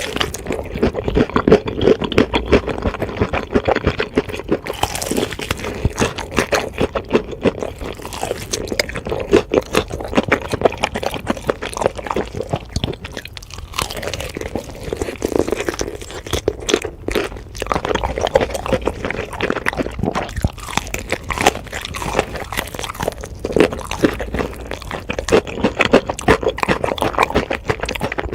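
Close-miked biting and chewing of crispy fried chicken: dense, irregular crunches and crackles without a break.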